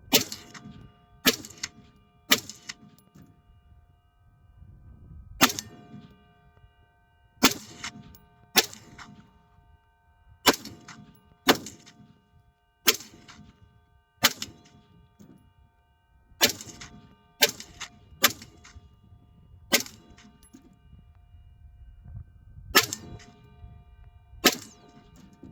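AR-15 rifle fired about sixteen single shots, spaced one to three seconds apart until the magazine runs out. Steel targets ring with a lingering metallic tone between the shots.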